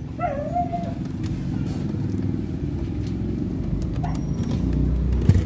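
A steady, low motor rumble that grows slightly louder, with a short pitched call just after the start and a couple of knocks near the end.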